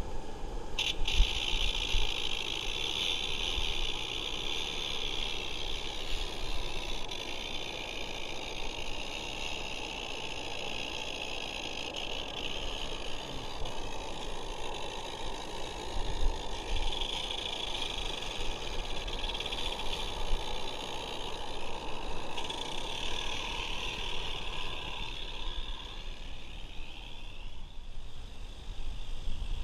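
Regner Vincent live steam garden-railway locomotive running under steam, with a steady hiss of steam over the rattle of the small train on the rails. The hiss fades near the end.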